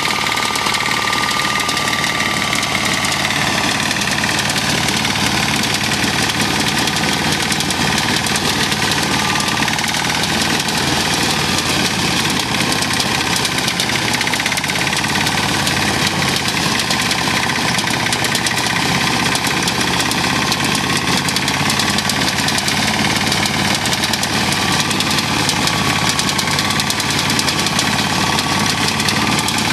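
Small single-cylinder engine of a walk-behind self-propelled reaper running steadily under load as the machine cuts through a standing soybean crop. A steady high tone runs through it, wavering slightly in pitch.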